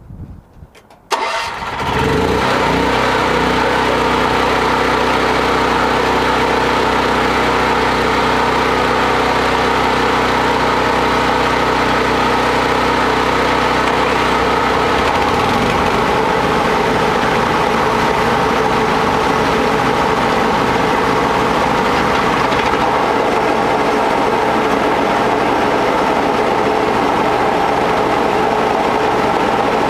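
A portable generator's engine starts about a second in and runs steadily. About fifteen seconds in the low rumble changes as the rock crusher's small gasoline engine starts and runs alongside it.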